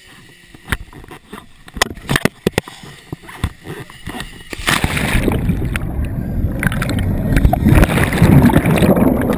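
A series of sharp clicks and knocks, then about halfway through a loud, noisy rumble of a car running and moving sets in suddenly and carries on.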